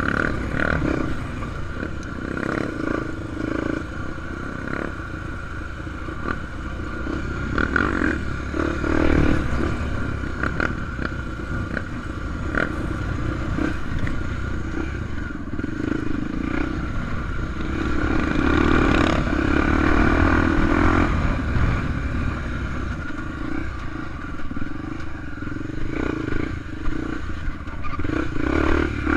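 Honda XR250 Tornado enduro motorcycle's single-cylinder four-stroke engine running under changing throttle while ridden off-road on dirt. It gets louder twice as the rider opens it up, with scattered knocks from the bike over rough ground.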